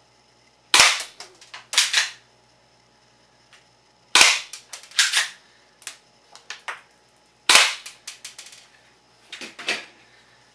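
BB gun being fired at a target in a small room: about six sharp cracks, spread unevenly over ten seconds, each followed by lighter clicks and ticks.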